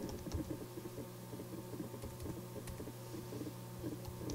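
Faint computer-keyboard typing: scattered, irregular key clicks over a steady low hum.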